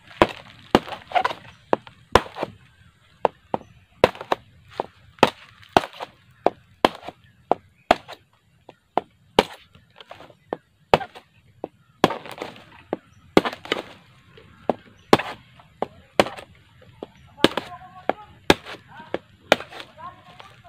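Bolo knife chopping into a flattened split-bamboo board, with sharp, irregular strikes about one or two a second. The blade is hacking through the node sections that earlier cuts did not get through, so the bamboo can be opened out flat.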